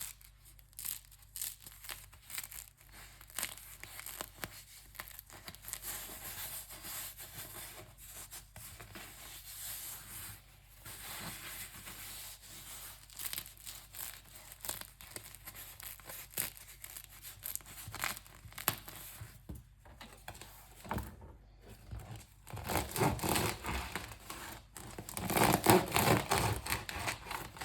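Crisp crust of a fresh French baguette crackling and crunching as it is broken apart, many small sharp cracks, growing louder and fuller in the last few seconds.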